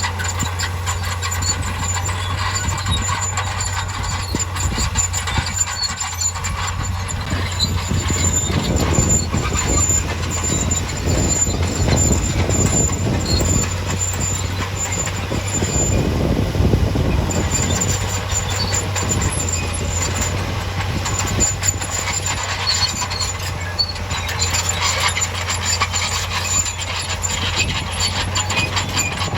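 Heavy diesel earthmoving machinery running, with a steady low engine note throughout and a thin high squeal on top. From about eight to seventeen seconds in, a louder rough rumbling swells up and then dies back.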